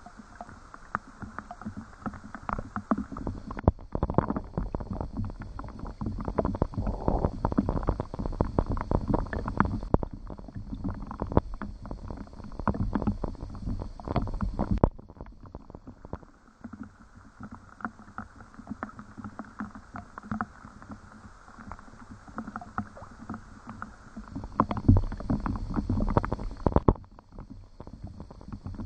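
Rain falling, with dense, irregular drips and splashes of water. The sound changes abruptly several times through the stretch.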